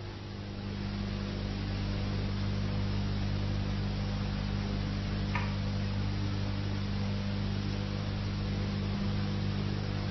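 Steady low electrical mains hum with hiss, the background noise of an old video soundtrack, with one faint click about five seconds in.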